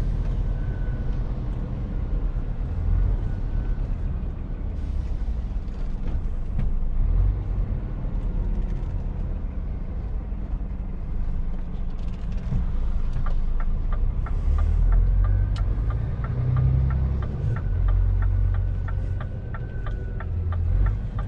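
Scania truck's diesel engine and tyres rumbling steadily, heard inside the cab while driving on a wet street. From about two-thirds of the way in, the turn indicator ticks evenly, about twice a second, as the truck prepares to turn.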